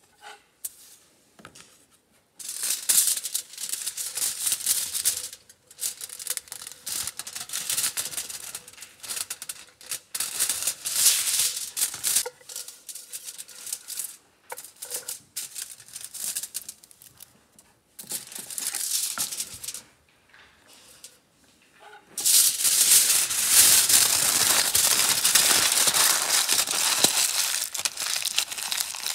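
Aluminium foil crinkling as it is handled, in irregular bursts, then crumpled continuously in the hands for the last several seconds.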